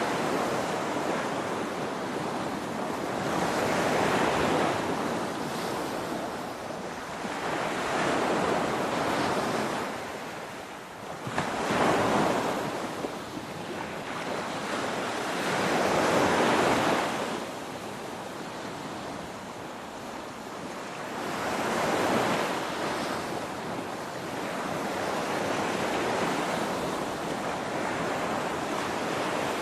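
Ocean waves crashing and washing on a shore, the surf swelling and falling back roughly every four seconds.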